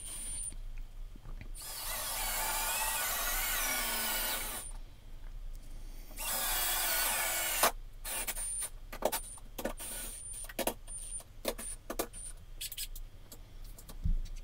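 Cordless drill boring pilot holes into wooden boards, with two runs of a few seconds each, its motor pitch wavering under load. Scattered clicks and knocks follow, with a low thump near the end.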